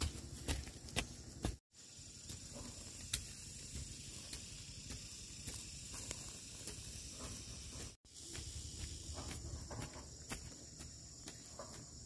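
Insects chirring steadily in a high band, with scattered light footsteps and crunching on dry, charred ground. The sound cuts out completely for a moment twice.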